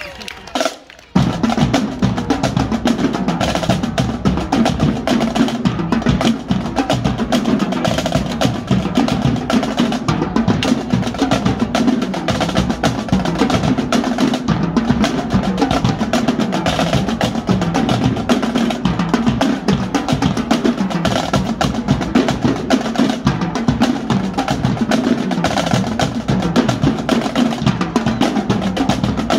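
Marching drumline playing together: snare drums, tenor drums and bass drums in a dense run of strokes and rolls, starting about a second in.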